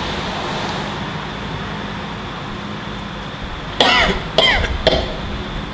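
A steady hiss, then, about four seconds in, three short, loud vocal outbursts in quick succession, each falling in pitch.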